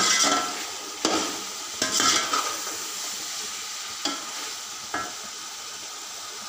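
Potatoes and chicken frying in oil and spices in an aluminium pot, sizzling steadily during the bhuna (browning) stage, while a metal slotted spoon stirs and scrapes against the pot with a few sharp clinks about a second apart.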